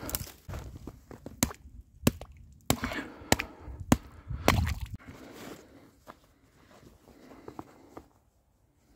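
A hatchet chopping at pond ice: a run of sharp cracking blows, a little over half a second apart, stopping about five seconds in. Faint rustling follows.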